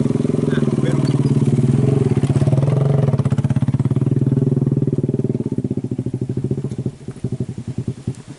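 Mitsubishi Colt Diesel truck's diesel engine labouring under load, its revs sagging from about three seconds in until it runs in slow, separate chugs near the end: the truck is bogging down and losing power on a hill climb.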